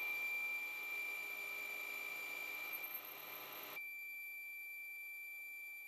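Metal lathe running while a boring bar cuts inside a steel part: a faint, steady high-pitched whine over a soft cutting hiss. The hiss drops away about four seconds in.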